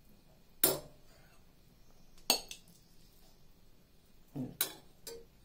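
Cutlery clinking against dishes: about five sharp clinks, the loudest about half a second in and again about two seconds in, with a quicker pair near the end.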